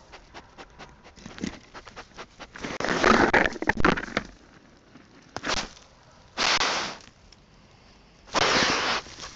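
Dry leaf litter crackling and rustling as an animal noses and digs through it right at the camera. Small crackles come first, then louder rustling about three seconds in, followed by a few separate bursts of rustling.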